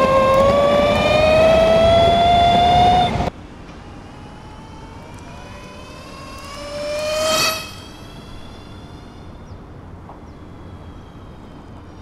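Arc Aileron v2 electric skateboard's gear-driven Fusion drive whining under full throttle, its pitch rising steadily as the board picks up speed, over wheel and wind noise close up. About three seconds in the sound drops abruptly to a faint background. Around seven seconds in the board passes by: a rising whine swells briefly, then cuts off.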